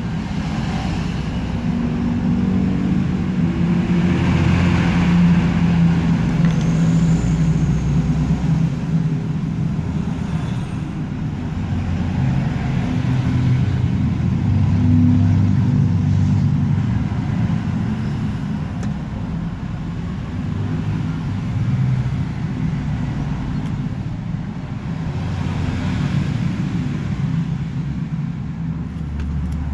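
Motor vehicle traffic: a continuous low engine rumble that swells and fades as vehicles pass.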